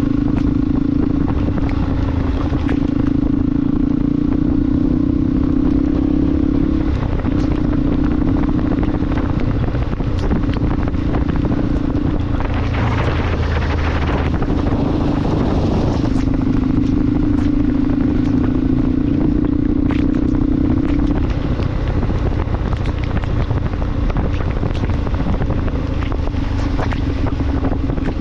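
Motorcycle engine running steadily under way, with a low rumble and a constant hum, plus wind and road noise. About halfway through, a louder rush of noise swells for a few seconds and then fades, while the engine hum drops back.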